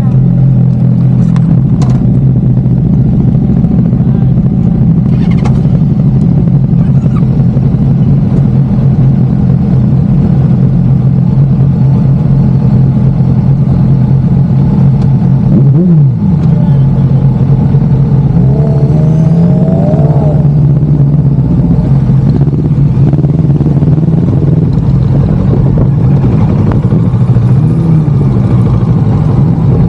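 Motorcycle engine running at a steady drone, with a brief rev rising and falling about halfway through.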